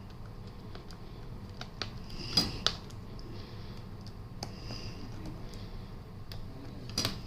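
Light clicks and taps of the bottom cover of a Lenovo ThinkPad X1 Carbon Gen10 laptop being pried off, with two sharper clicks about two and a half seconds in and another near the end.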